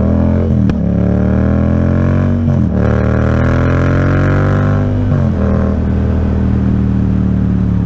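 Motorcycle engine accelerating through the gears. Its pitch climbs and drops back at each upshift, about a second in, near three seconds and just past five seconds, then holds steady at cruising speed.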